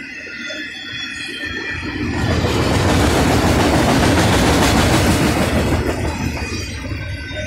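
Freight train of autorack cars rolling past close by. A thin high wheel squeal comes first, then the rolling noise swells about two seconds in and eases off near the end.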